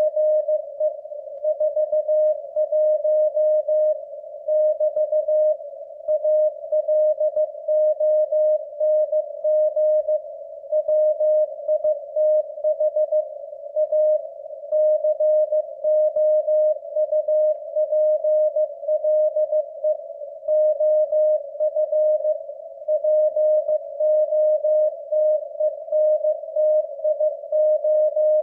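Morse code practice sent at 15 words per minute: a single steady beep keyed on and off in short dits and longer dahs, with brief pauses between letters and longer ones between words.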